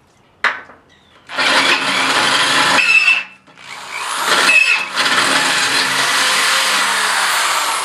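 Power drill with a 1/2-inch bit boring through the steel tooth bar, enlarging a smaller pilot hole in steps. A sharp click about half a second in, then two long runs of steady drilling with a short break about three seconds in.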